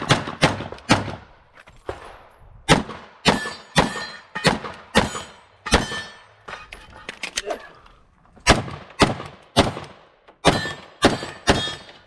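Glock 17 9mm pistol firing a fast string of shots during a USPSA stage, mostly in quick pairs with short pauses between groups as the shooter moves from target to target.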